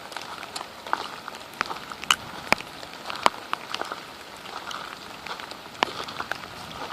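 Steady rain falling, with irregular sharp ticks of drops striking close by.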